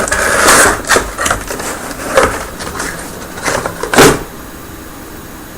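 Keyboard box packaging rustling and knocking as the keyboard is handled and lifted out, with a sharp knock about four seconds in.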